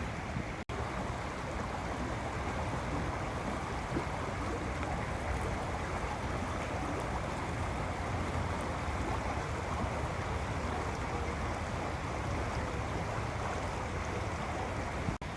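Steady rushing water noise, even throughout, broken only by two split-second dropouts, one just after the start and one near the end.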